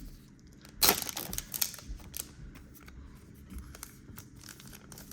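Trading card pack wrapper crinkling, with a sharp crackle about a second in, followed by lighter rustling and clicks as the cards are handled.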